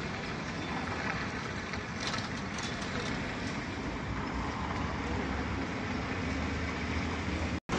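Steady city street traffic noise: the even rumble and hiss of vehicles on the road, with no one sound standing out. It cuts out for an instant near the end.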